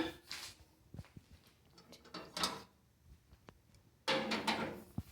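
Kitchen handling noises: a few sharp clicks and knocks and three short scraping, rustling sounds, like things being moved and set down around a microwave.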